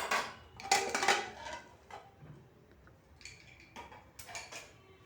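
Pressure cooker lid being opened and handled: a series of metal clanks and scrapes against the pot, loudest in the first second and a half, with a few more near the end.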